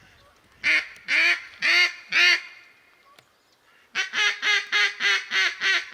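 Mallard hen quacks blown on a duck call: four loud, drawn-out quacks, then a quick, even run of about eight shorter ones, calling to passing ducks.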